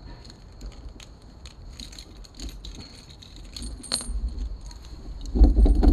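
Keys and a metal chain lock clinking and jangling in small irregular taps as they are handled, getting louder toward the end, with a heavy low rumble from knocks against the mounted camera about five seconds in.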